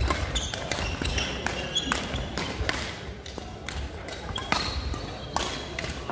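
Badminton being played on a wooden sports-hall court: sharp racket hits on the shuttlecock, the loudest right at the start, with footfalls thudding and short high squeaks. Background voices from other courts come and go.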